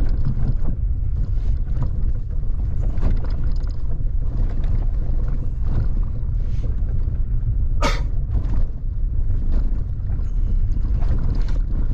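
Vehicle driving, with a steady low rumble of wind buffeting and road noise on the camera microphone, broken by scattered knocks and rattles; one sharper knock comes about eight seconds in.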